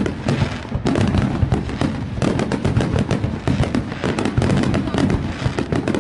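Fireworks display: a dense, continuous barrage of bangs and crackling with no pause.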